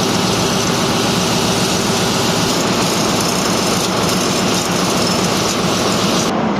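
Turbocharged diesel generator running steadily, the engine's drone overlaid by a loud, even turbocharger hiss.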